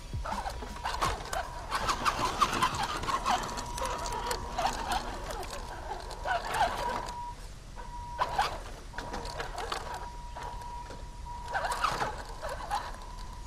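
A 1/10-scale RC rock crawler's electric motor and drivetrain whining with a steady high tone as it creeps over rocks. The whine drops out briefly twice around the middle. Scattered clicks and knocks of tyres and chassis on stone, with short chirpy glides over the top.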